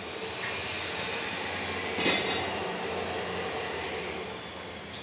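Massey Ferguson 1035 tractor running steadily during the test of its repaired hydraulic pump, with two sharp clicks about two seconds in.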